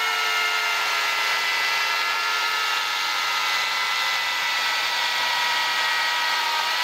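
Oregon corded electric chainsaw running at full speed with its chain in a log, a steady motor whine that sags slightly in pitch. The chain has been dulled on rock and asphalt and is barely cutting.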